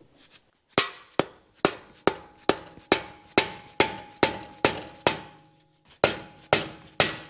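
Hammer blows on steel, about two a second, each with a short metallic ring, with a brief pause about three quarters of the way through. It is a hammer knocking on the BMW X5's front suspension to free the tie rod end.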